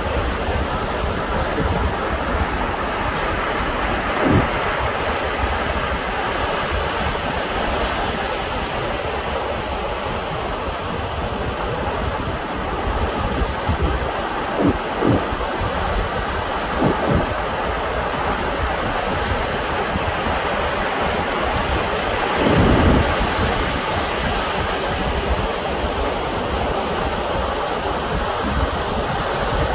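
Steady rush of ocean surf and wind at the shore. A few brief low thumps break through, the longest about three-quarters of the way through.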